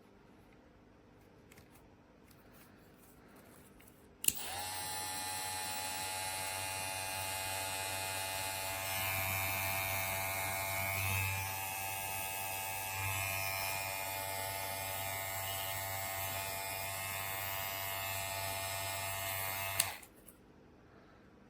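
GLAKER cordless hair clipper switched on with a click about four seconds in. It runs with a steady electric buzz for about fifteen seconds, then is switched off with a click near the end.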